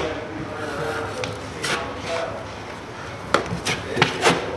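A 6-inch drywall taping knife spreading joint compound over a taped drywall seam: wet scraping strokes against the wall, with a cluster of sharp scrapes and clicks near the end.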